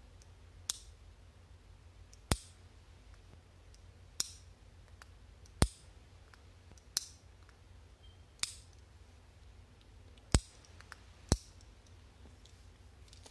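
About eight sharp, isolated clicks, spaced one to two seconds apart, over a faint steady low hum.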